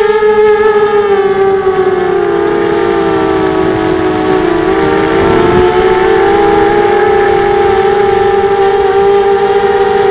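FPV quadcopter's motors and propellers whining as it flies, recorded by its onboard camera. The pitch wavers, dipping a little around the middle and climbing back.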